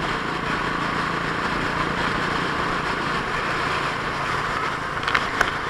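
Motorcycle ridden at road speed: a steady rush of wind over the mounted camera's microphone with the engine running underneath, and a few short crackles near the end.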